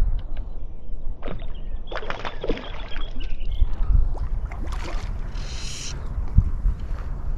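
Low, steady rumble of wind and water on a chest-mounted action camera as a fly angler stands in the shallows handling fly line. There are scattered light knocks and a short high buzz about five and a half seconds in.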